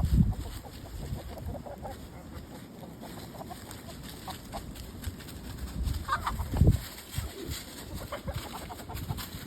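Chickens clucking, short calls now and then, with a couple of low thumps on the microphone, one at the start and one about six and a half seconds in.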